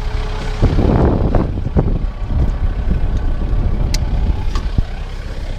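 Tractor engine running steadily with a round baler working behind it, with a brief louder rushing burst about a second in and a few sharp clicks later.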